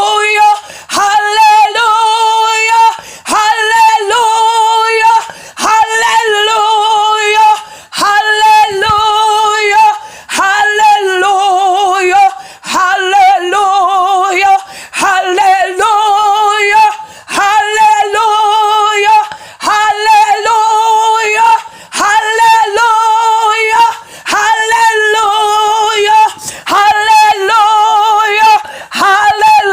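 Unaccompanied singing: one voice repeats the same short sung phrase roughly every two seconds, each time ending on a held note with vibrato.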